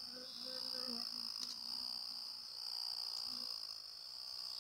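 Crickets chirring in a steady, continuous high trill. A faint low buzz comes and goes in the first second and again about three seconds in.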